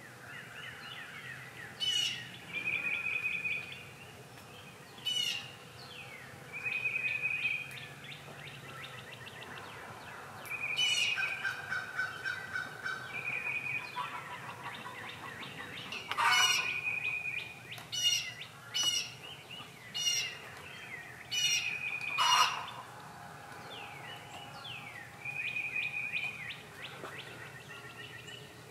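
Backyard hens and wild birds, crows among them, calling in alarm at a bobcat near the chicken run: a high call repeated every few seconds, broken by loud, harsh squawks that come thicker past the middle.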